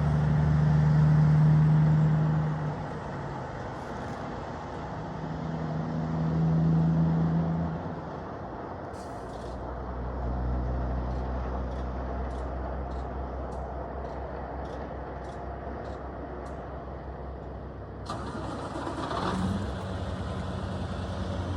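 Heavy truck's diesel engine running, swelling louder twice in the first eight seconds, then settling to a steady lower note with faint ticking about twice a second. Near the end the sound changes abruptly.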